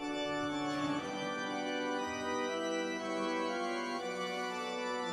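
Organ music of slow, held chords.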